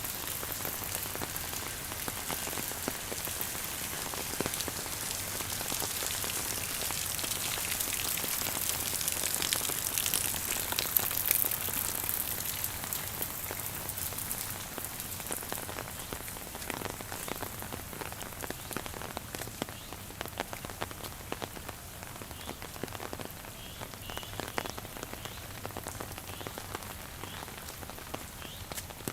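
Steady rain falling, with many separate drops ticking; it grows loudest about ten seconds in and then eases a little.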